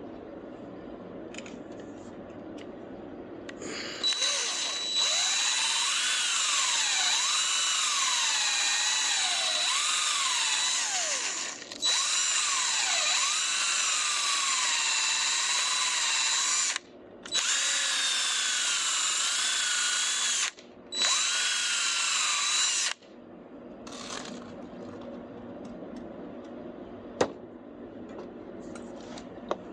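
Power drill spinning a cleaning brush inside the brake-cleaner-soaked holes of a brake caliper bracket, scrubbing out old hardened brake grease. It runs in four bursts with short stops between them, and the motor pitch wavers up and down as the brush loads and frees.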